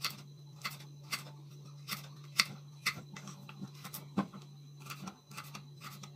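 Kitchen knife slicing through raw carrot and tapping the wooden cutting board, a crisp cut about twice a second, over a steady low hum.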